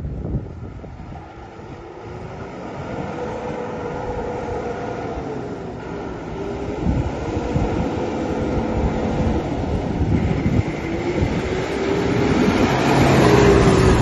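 Landini Powerfarm 100 tractor's diesel engine running as the tractor drives up and passes close by, growing steadily louder toward the end, with a whine riding over the engine note.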